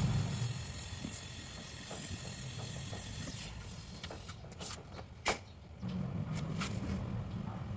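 Steady hiss of gas, which thins out about four seconds in, with a few sharp clicks before a low rumble comes back.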